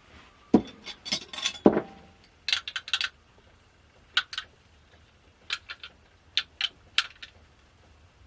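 Small metal parts being handled, clicking and clinking irregularly in short clusters, with two duller knocks in the first two seconds.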